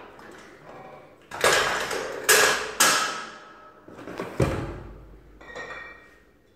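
Hand-lever floor wine corker being worked: three loud clanks in quick succession as the lever drives a cork into a glass bottle. Then comes a heavier thud as a bottle is set down, and a short glassy clink near the end.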